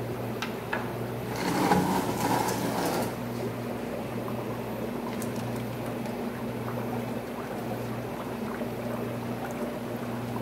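Steady hum of an aquarium rack's pumps with water running into the tanks and sumps. About a second and a half in, a louder rush of pouring, splashing water lasts about two seconds.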